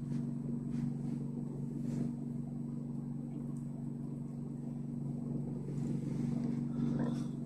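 A steady low machine hum with a few faint rustles.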